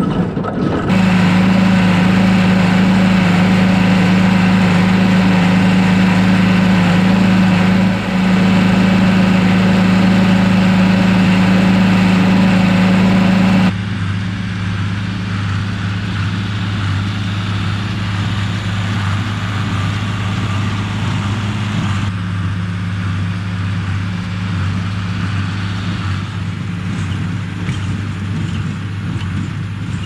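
John Deere tractor's diesel engine running steadily under load while pulling a small square hay baler. It is loud and close for the first half, then drops suddenly to a quieter, more distant level.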